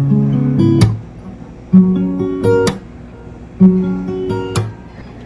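Background music: an acoustic guitar strums chords in short phrases about every two seconds, with quieter gaps between them.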